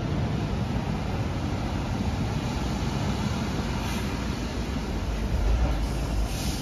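Steady low rumble of a tram running away along its track, mixed with street noise over wet roads.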